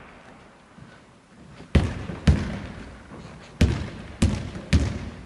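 A faustball bouncing on a wooden sports-hall floor: five sharp thuds at uneven intervals, each ringing on in the hall's echo.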